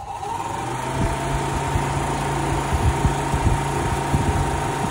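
The Nissan B13's electric radiator cooling fan running with a steady whirring hum, with scattered irregular knocks. The fan comes on as its wiring is being tested.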